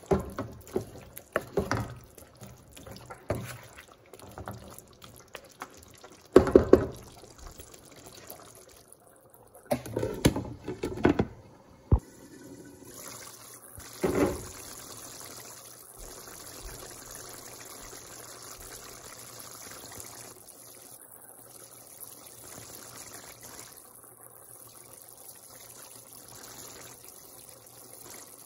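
Wooden spoon stirring thick mutton curry in a pan, with irregular sloshing and scraping strokes through the first half. About halfway in the stirring stops and the curry simmers, bubbling with a steady, fainter sizzle.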